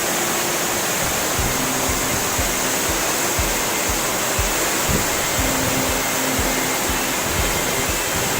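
Waterfall pouring down close by, a loud, steady rush of water.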